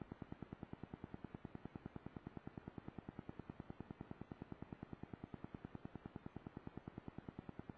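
Faint, even electrical ticking, about nine to ten pulses a second, with no change in speed or pitch: interference noise in a small camera's recording.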